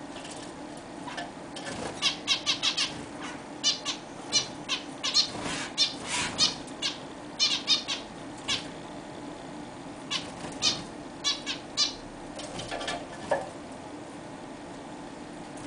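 Zebra finches calling: a rapid series of short, high, nasal beeping calls, coming thick from about two seconds in and thinning out after about twelve seconds.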